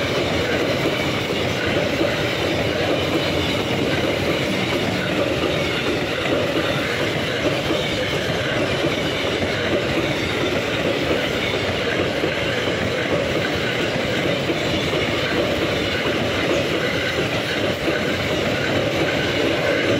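Freight train of double-deck car-carrier wagons passing close by, its wheels running steadily on the rails.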